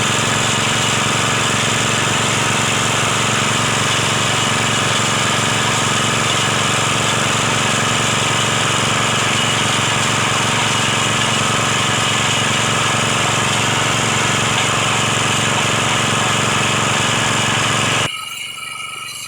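Engine of a well-drilling machine running steadily under load, loud and even. It cuts off abruptly near the end.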